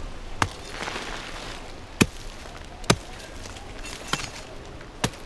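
Five sharp, brief clicks or snaps at irregular intervals, the loudest two about two and three seconds in, over a faint steady outdoor background.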